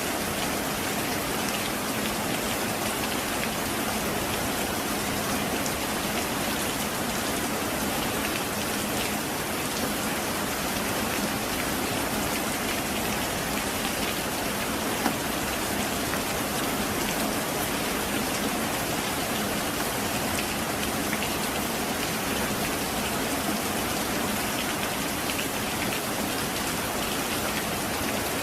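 Heavy rain falling steadily, an even hiss of downpour flecked with the ticks of single drops, with one sharper tick about halfway through.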